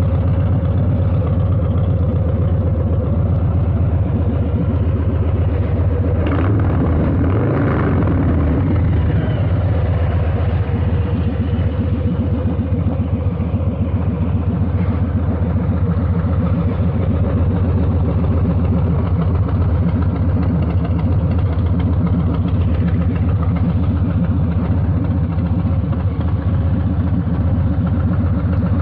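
Harley-Davidson Low Rider S's 117 Milwaukee-Eight V-twin running steadily through a Two Brothers 2-into-1 exhaust while riding, a deep, pulsing exhaust note that is very loud.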